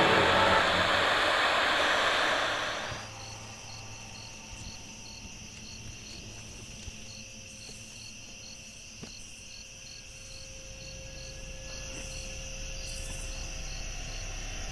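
A loud hiss cuts off about three seconds in, leaving night insects: crickets chirping about twice a second over a steady high trill. A low rumble grows slowly near the end.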